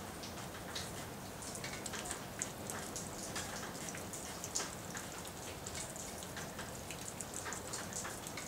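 Rain falling: a steady hiss with many irregular ticks of drops striking nearby surfaces.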